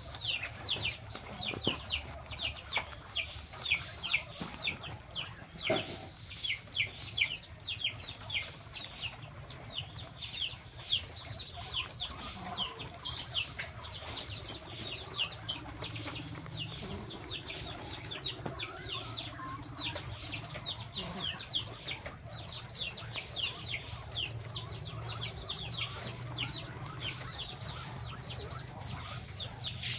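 Small animals peeping in a rapid series of short, high calls that fall in pitch, several a second, thinning out midway and picking up again near the end, over a low steady hum.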